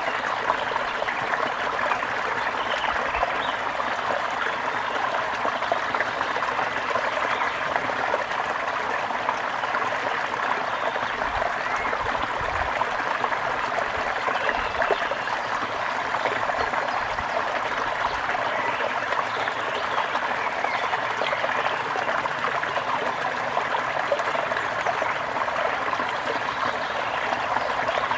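A brook babbling and trickling steadily over stones.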